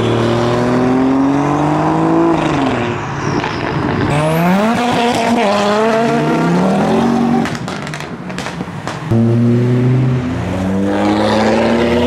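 Modified car engines revving hard as the cars accelerate away, the pitch climbing and then dropping with gear changes. About nine seconds in, a louder engine comes in suddenly.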